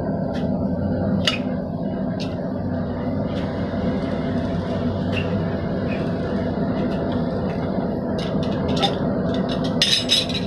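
A forge running with a steady hum while a steel bar is reheated, with scattered light metallic clinks and a short loud clatter of metal near the end.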